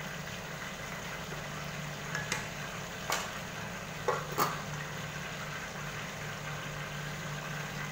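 A stainless steel pot lid clinks a few times against the pot as it is put on, over a steady low hum.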